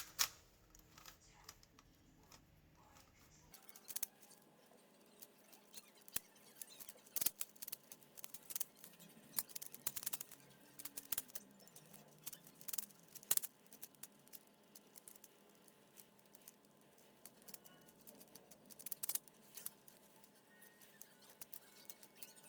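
Plastic Rubik's cube being turned by hand: irregular quick clicks and clacks as its layers rotate, coming in clusters with a few louder snaps.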